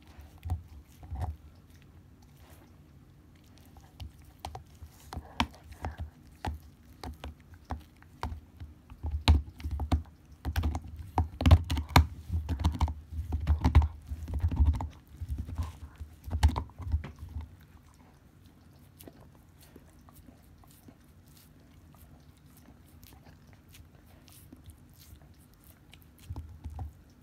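Akita dog gnawing on a deer bone: irregular cracks and crunches of teeth on bone, densest and loudest through the middle, then a quiet stretch before the chewing starts again near the end.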